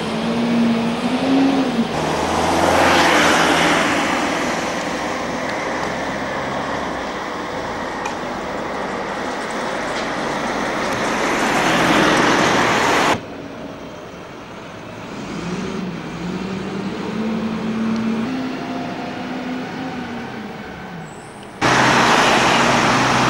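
Road traffic: motor vehicles passing close by, their engine notes rising and falling over the rush of tyres. The sound drops suddenly about halfway through and comes back loud shortly before the end.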